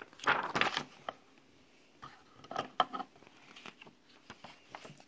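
Paper rustling and handling noises as the pages of a large picture book are turned: a cluster of rustles and soft knocks about half a second in, and more a couple of seconds later.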